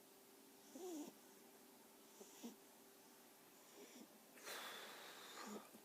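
Pug snoring in its sleep: a short pitched breath that bends up and down about a second in, a few small snuffles, then a longer, noisy breath a little past the middle.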